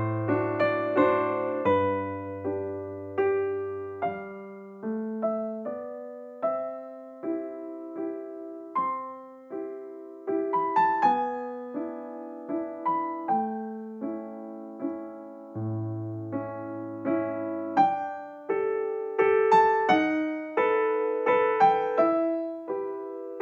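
Background piano music: a gentle melody of struck notes over sustained low bass notes.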